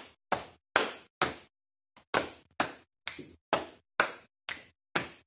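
Body percussion in a steady counted rhythm: hand claps, pats on the thighs and finger snaps, about two and a half strokes a second, with a short rest about a second and a half in.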